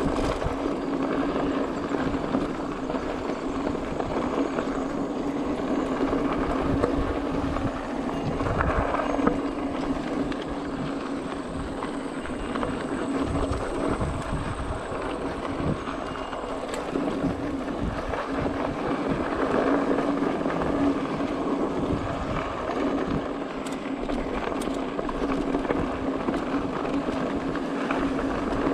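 Mountain bike rolling fast downhill on a loose dirt and gravel trail: tyres rolling over the dirt, the bike rattling and knocking over bumps, with a steady hum underneath and wind on the microphone.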